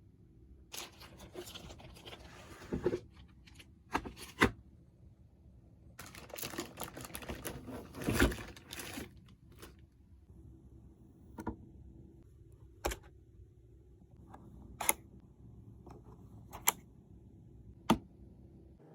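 Packaging being handled: two spells of crinkling and rustling, followed by about six single sharp clicks a second or two apart.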